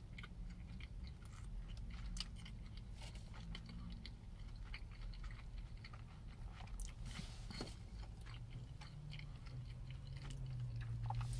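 A person chewing food close to the microphone: irregular small wet clicks and crunches, over a steady low hum.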